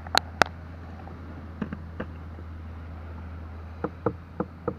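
Two sharp clicks as the hinged clamp arms on a kayak's daggerboard mount are snapped shut, followed by lighter clicks and taps of the hardware being handled, over a steady low hum.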